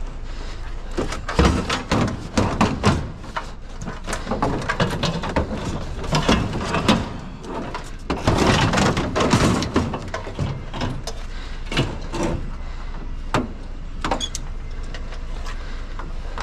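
Scrap being handled and loaded into a trailer: irregular clanks, knocks and clattering of metal and other junk, with busier bursts about a second in and again around eight to ten seconds in, over a steady low rumble.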